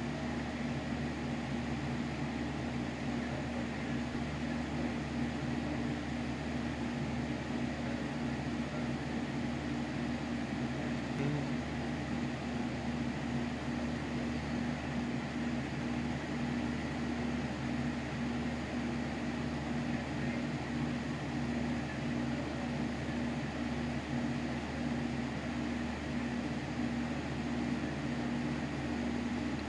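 Steady low mechanical hum with a hiss over it, unchanging, with no distinct events.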